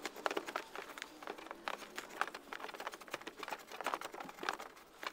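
Irregular rustling, scraping and light clicks as a mini-split air handler's power cord and insulated refrigerant line bundle are pushed by hand through a hole in the wall.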